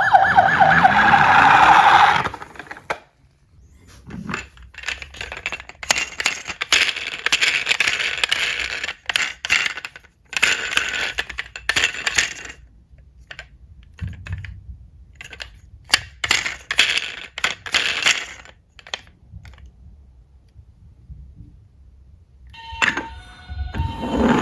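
A fast-warbling toy siren sounds for about the first two seconds and stops. Then diecast metal toy cars clink, click and rattle in several clusters of sharp metallic knocks. A siren starts up again at the very end.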